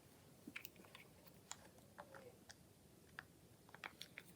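Faint, irregular small clicks and ticks of a plastic cable stripper being handled and set on a flexible cable.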